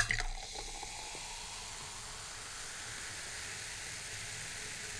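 Carbonated cola poured from a plastic bottle into a glass mug, the fizzing foam giving a steady hiss. It is a little louder at first, as the pour starts.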